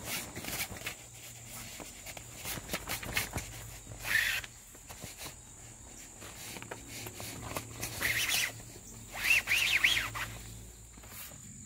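Vinyl-and-canvas awning edge rustling and scraping as elastic shock cord is worked through its grommet channel by hand, with a few short squeaks near the end as the cord is pulled out taut.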